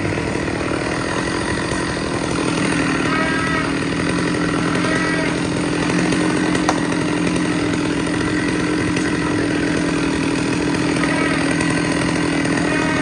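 Large two-stroke Stihl chainsaw running steadily at high revs while cutting into the trunk of a big tree.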